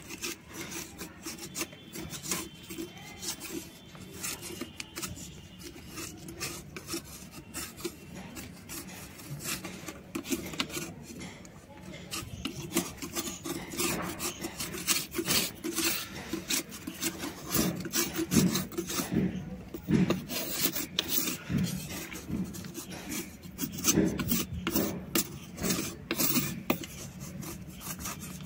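A knife blade scraping a block of soft white shale stone in quick repeated strokes, a rasping that gets louder about halfway through.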